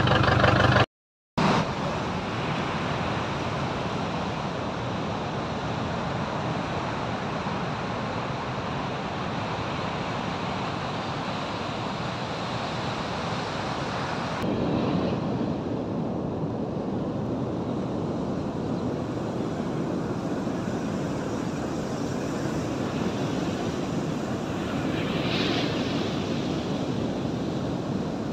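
Ocean surf washing onto a beach, with wind on the microphone: a steady rush of noise that changes character at a cut about halfway through. At the very start a vehicle engine idles for about a second before it cuts off.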